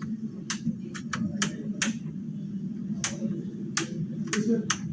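Plastic laptop screen bezel being pressed back onto the lid, its clips snapping into place in a series of about nine sharp, irregular clicks.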